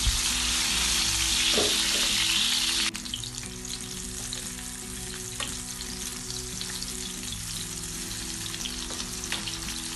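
Tomato slices sizzling in hot oil in a frying pan: a steady hiss that drops sharply in level about three seconds in and then carries on more quietly, with a few light clicks.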